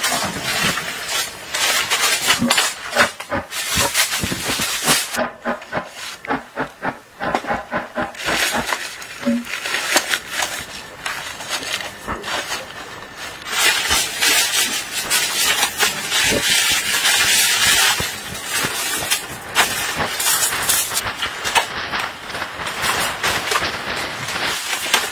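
Rustling and crinkling of plastic sheeting and tent fabric as a mat is unfolded and handled, with a denser, steadier stretch of rustle in the middle.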